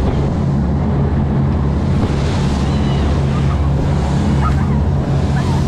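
Boat running fast through open sea. The hull hisses and splashes through spray and wake over the boat engine's steady low drone, with wind buffeting the microphone.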